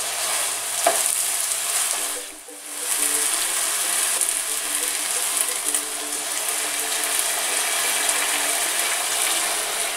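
Risotto rice sizzling steadily in a hot pan, stirred with a wooden spoon. After a brief drop a little over two seconds in, hot chicken broth is ladled in and the rice goes on sizzling.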